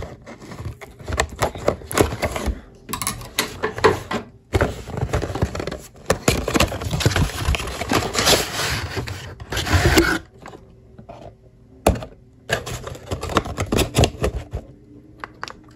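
Cardboard toy box being handled and opened by hand: a busy run of scrapes, taps and rustles for about ten seconds, then quieter, sparser handling.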